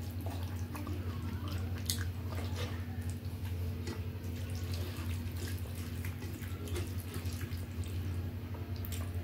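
Steady low hum under faint, scattered soft clicks and squishes of fingers mixing wet rice and sambar on a steel plate.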